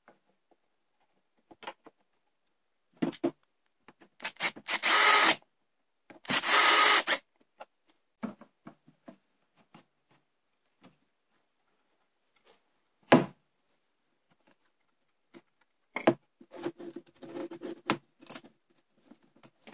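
Cordless drill-driver driving screws into wood in two bursts of about a second each. A single sharp knock follows, and near the end a stretch of wooden clattering and rubbing.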